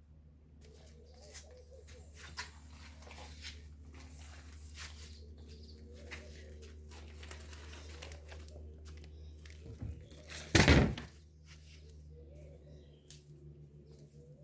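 A steady low hum with scattered light clicks, and one loud thump about ten and a half seconds in.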